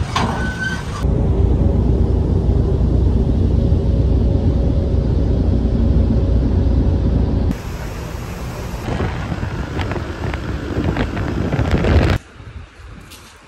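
Loud, steady rumble of a vehicle engine with a low hum, in several clips that change abruptly about a second in and again at about seven and a half seconds. Near the end it cuts to a much quieter background.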